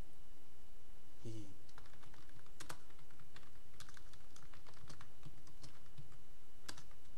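Computer keyboard typing: a short run of irregular keystrokes from about two seconds in, ending with a last sharp keystroke near the end.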